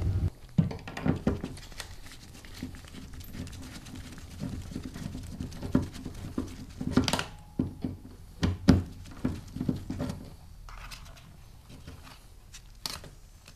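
Gloved hands working small nuts and lock washers off the heating element's ground terminal on a sheet-metal smoker panel: irregular small metallic clicks, taps and rustling, with a couple of louder knocks past the middle.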